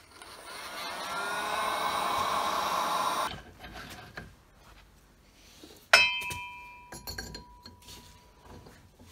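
Handheld angle grinder spinning up, running for about three seconds and cutting off suddenly. About six seconds in, one sharp metallic clink rings on for about a second.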